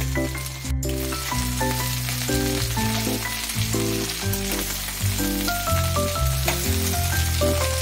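Chopped okra sizzling as it fries in a pan, with a steady hiss, under background music with a stepping melody and bass line.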